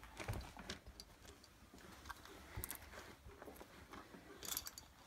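Faint, scattered light clicks and taps of metal engine parts being handled by hand, as a timing chain is worked through a small dirt-bike cylinder head.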